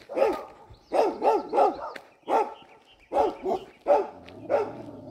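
A medium-sized, short-haired tan dog barking repeatedly at people walking past, in quick runs of two or three barks.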